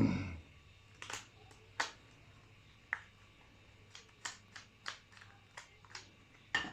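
Plastic parts of a Makita 8280D cordless drill being handled and fitted back together: a knock at the start, then about a dozen light clicks and taps, coming closer together in the second half.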